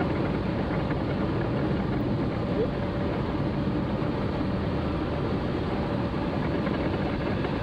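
Steady in-cabin noise of a Volkswagen Gol driving on a rain-soaked road: engine and tyres on wet asphalt blending into an even hiss and rumble.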